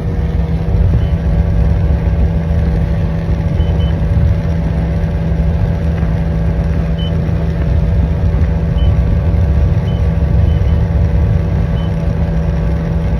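Triple Mercury 400R outboard engines running at a steady speed, a constant deep drone with no change in pitch.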